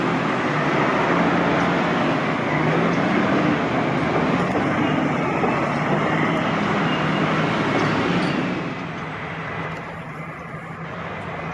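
Engine and road noise of a large vehicle running close by, with a low wavering engine note, dropping away about eight and a half seconds in.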